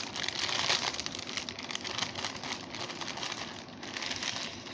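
Plastic mailer bag crinkling and rustling as hands pull it open and take out a wrapped package. Loudest in the first second, dying down near the end.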